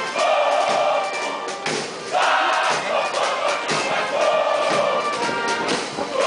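A large group of voices singing together with music, in phrases of about a second and a half.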